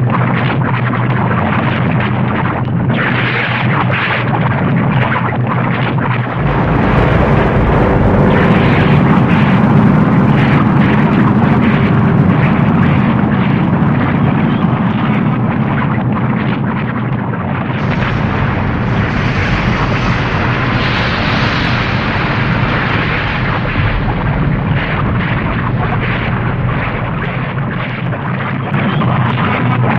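Volcanic eruption sound effect: a continuous deep rumble full of crackling. It swells heavier about six seconds in, then a brighter, hissing surge comes in around eighteen seconds and slowly eases off.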